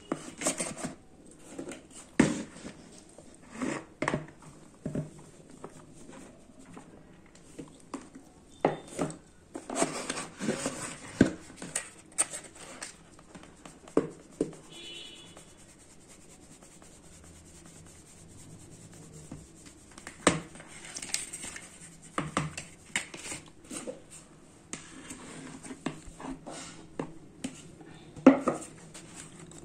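Maida flour being sifted through a plastic-rimmed mesh sieve over a plastic tub. Irregular knocks and taps of the sieve come with short rustling scrapes as the flour is worked through the mesh.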